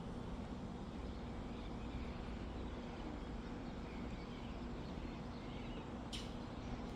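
Outdoor ambience with a steady low hum and faint, distant bird chirps, and one short sharp click about six seconds in.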